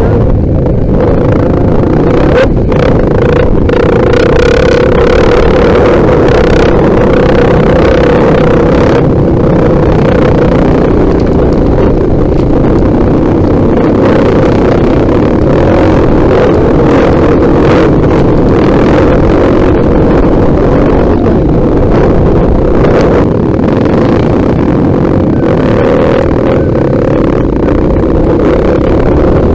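Motorcycle engine running steadily while riding, heard close up from on the bike, with occasional sharp knocks over the rough dirt track.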